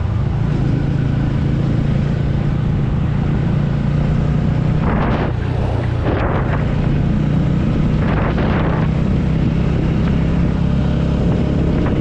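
TVS Ronin's single-cylinder engine running at a steady cruise, with two brief rushes of noise about five and eight seconds in.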